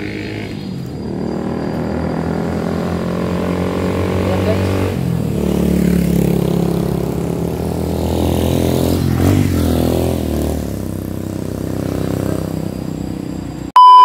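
Motorcycle engines passing by, growing louder and fading twice. Near the end comes a short, very loud steady electronic beep.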